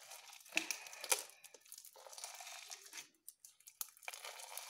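A large batch of blue glue slime being kneaded and stretched by hand, making irregular sticky crackling and tearing sounds as it pulls apart. The glue is not yet fully worked in, so the slime is still sticky and hard to mix. The sharpest crackles come about half a second and a second in.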